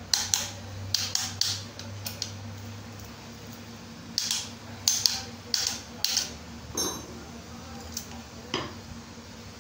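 Irregular metal taps and clinks as pistons are knocked down through a ring compressor into the engine block of a Hyundai i10 Era engine. One tap, about seven seconds in, rings briefly.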